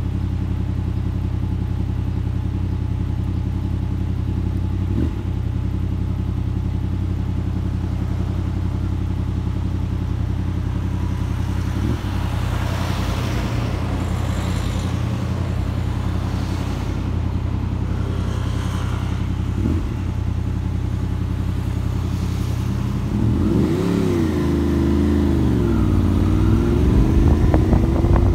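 Motorcycle engine idling steadily while another vehicle passes close by in the middle. About five seconds before the end the engine revs and the motorcycle pulls away, its pitch rising, dipping and rising again as it accelerates.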